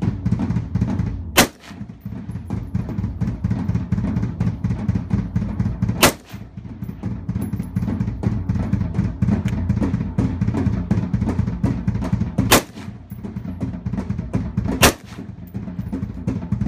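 Drum-heavy background music with a steady beat. Four AR-style rifle shots crack out over it: one about a second and a half in, one around six seconds, and two close together near the end.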